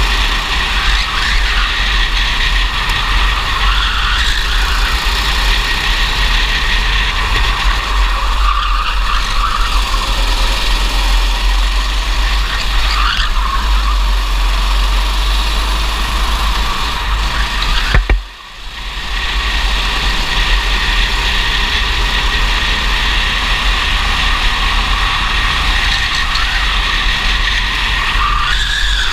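Racing go-kart engine heard from an onboard camera at full race pace, its pitch rising and falling with the throttle through the corners, over heavy wind rumble on the microphone. About two-thirds of the way through, the sound briefly drops away and then returns.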